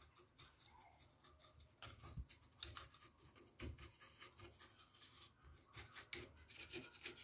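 Faint, irregular scratchy strokes of a small brush scrubbing a bare circuit board wet with isopropyl alcohol, starting about two seconds in.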